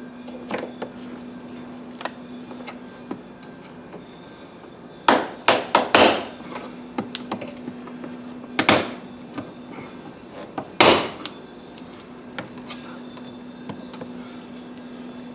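Knocks and clicks of car interior parts and trim being handled during seat belt replacement work, with a quick run of loud knocks about five seconds in and two more single ones later. A steady low hum runs underneath.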